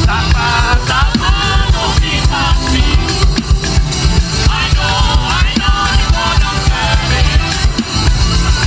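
Loud upbeat gospel song played over a sound system, with a heavy steady beat and melodic lines on top.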